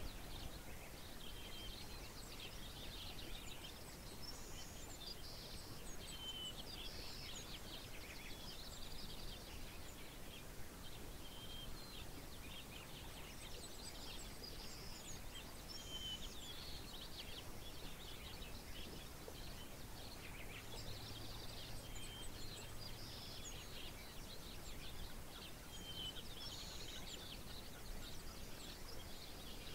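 Outdoor birdsong over a steady background hiss: several birds with short chirps and song phrases recurring every second or two.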